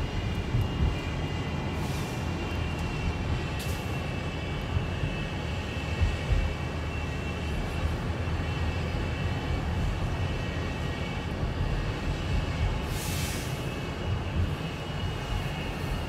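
Transit bus engine making an abnormal steady whine over a low rumble, heard from a car following close behind, with a few brief hisses. It is the strange engine noise of a bus that is breaking down.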